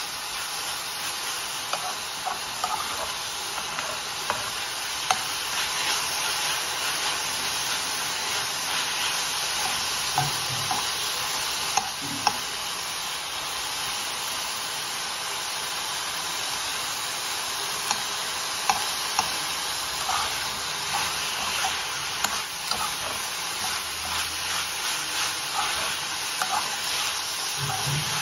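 Chopped greens (keerai) stir-frying in a kadai: a steady sizzle, with a metal spatula scraping and tapping against the pan every few seconds as it turns the greens.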